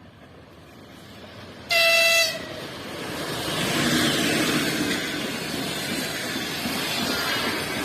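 EP2K electric locomotive hauling a passenger train sounds one short horn blast about two seconds in. Then the rush and rumble of the train on the rails swells as it comes through and stays loud.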